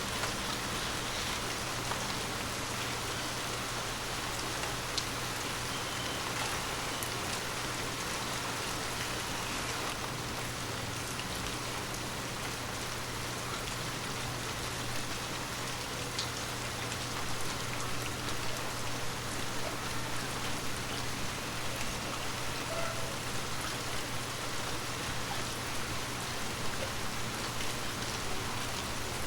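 Steady rain falling on forest leaves, a dense hiss of pattering drops with individual drops ticking now and then.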